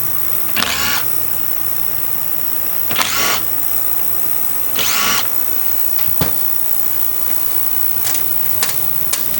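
Carburetor float bowl being taken off at a workbench: three short hissy bursts, then several light clicks and taps of small metal parts and tools, over a steady low hum.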